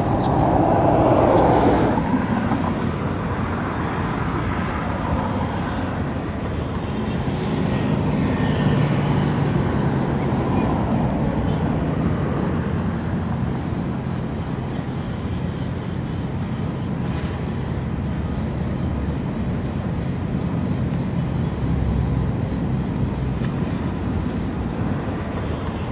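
Steady low rumble of a large engine, with a louder rushing noise in the first two seconds.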